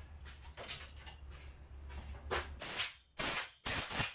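Four short hissing puffs of air in quick succession, in the second half, blowing sawdust out of a freshly threaded hole in a wooden gear-knob blank.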